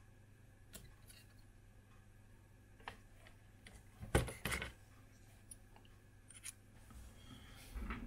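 Small clicks and taps of a soldering iron and a flux tube being handled on a repair mat, with a louder pair of knocks about four seconds in, over a faint steady low hum.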